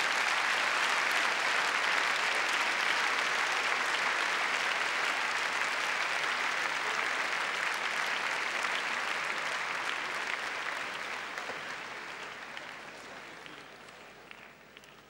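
Large arena crowd applauding, steady for about ten seconds, then dying away, with a few last scattered claps near the end.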